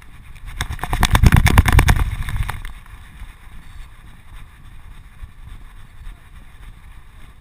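Wind buffeting and rapid rattling knocks picked up by a GoPro strapped to a running dog's back. They are loudest for about two seconds starting half a second in, then settle to a quieter steady rush.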